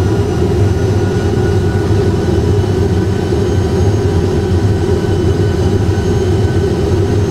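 Airbus A320 full flight simulator's cockpit sound: a steady engine and airflow drone with a strong low hum and a few faint high whining tones, as on approach to the runway.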